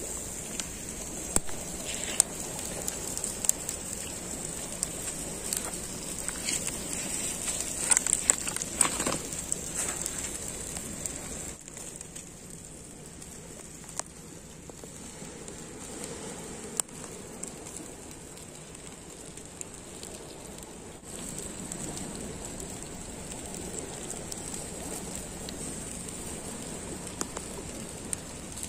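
Fish grilling over an open fire: steady crackling and sizzling with scattered sharp pops, busiest in the first ten seconds, easing off for a while and picking up again near the end.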